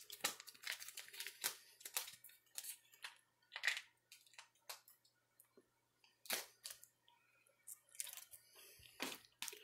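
Faint, scattered crinkles and clicks of an MRE peanut butter pouch being kneaded by hand, coming in irregular bursts with pauses between.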